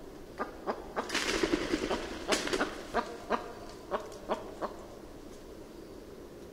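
Male western capercaillie's display song: a run of dry clicks, a hissing, scraping stretch about a second in, then a loud click and more clicks that stop about five seconds in.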